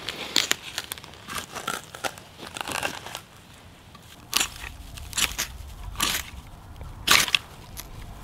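Knife spine scraped down a ferrocerium rod to throw sparks into a tinder bundle: a handful of short, sharp scrapes in the second half, the strongest about seven seconds in. Lighter crackling and rustling of handled dry grass comes before them.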